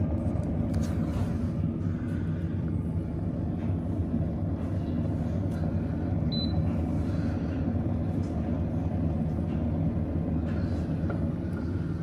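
CalmDo air fryer oven running with chips in its drum basket: a steady, even low hum from its fan and motor.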